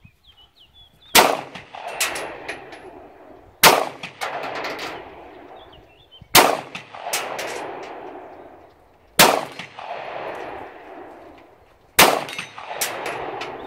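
Five single shots from a Glock 19 Gen 4 9mm pistol, spaced about two and a half to three seconds apart, each followed by a long echo that dies away.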